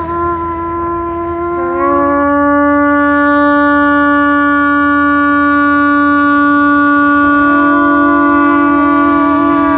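Long twisted shofars blown in long, steady held notes. One note ends about two seconds in as a slightly lower one starts and holds, and a second horn joins with a wavering note near the end.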